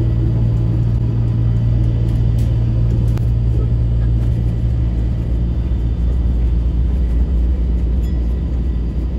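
Chiba Urban Monorail suspended car running along its overhead beam, heard from inside the front of the car: a steady low rumble and hum that drops lower about halfway through.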